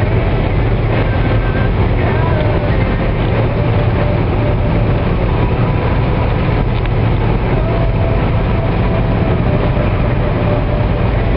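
Steady engine and tyre rumble inside the cabin of a vehicle cruising on a sealed highway, deep and unbroken, with faint wavering whistle-like tones coming and going above it.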